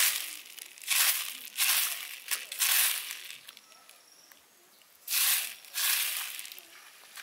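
Hands stirring and raking dried pigeon peas in a woven basket: a run of short rustling, rattling sweeps of grain against the weave, with a quiet spell of about a second and a half in the middle before two more sweeps.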